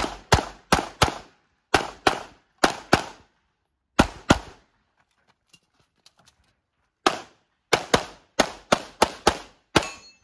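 Handgun fired in rapid pairs, about twenty shots in all, each sharp crack followed by a short echo. After about four seconds there is a pause of nearly three seconds, then the shots resume faster, in a quick string.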